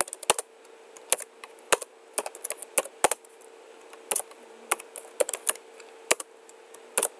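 Typing on a computer keyboard: irregular key clicks, some single and some in quick runs, with short pauses between them as a short command is entered. A faint steady hum sits underneath.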